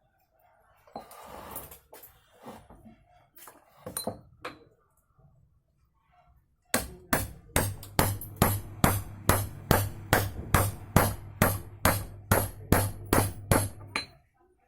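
Sharp knocks repeated evenly about three times a second for around seven seconds, over a steady low hum, after a few seconds of scattered handling clicks and rustle.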